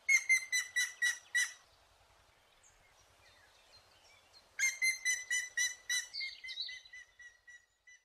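Woodpecker calling: a quick run of about six sharp, evenly spaced notes, then after a pause of about three seconds a longer run of about fifteen notes at roughly four a second that grows fainter and fainter.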